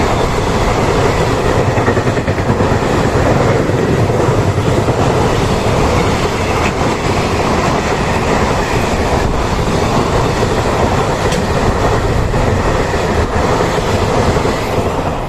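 Container freight train hauled by an EF210 electric locomotive passing on the line: a steady loud rumble of wheels on rails with clickety-clack. The noise drops off abruptly at the very end.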